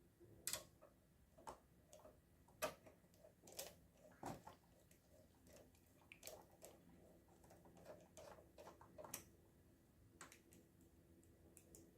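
Faint, irregular clicks and light knocks of screws being driven with a screwdriver to secure the power supply in a desktop computer's metal chassis.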